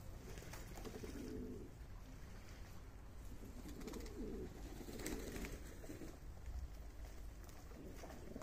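Domestic pigeons cooing, several low warbling coos spread through, with a few faint clicks among them.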